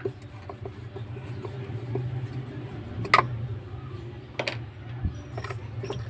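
Small clicks and knocks as the pulsator of an LG fully automatic washing machine is unscrewed and worked loose by hand, with two sharper knocks in the middle, over a steady low hum.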